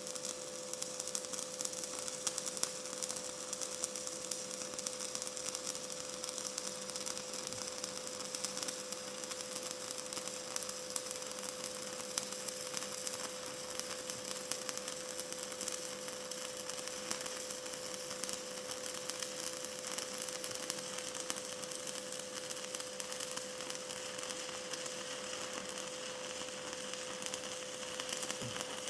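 Stick-welding arc from a 1/8 inch 6013 electrode running a continuous horizontal bead: a steady crackling sizzle with a constant hum beneath it.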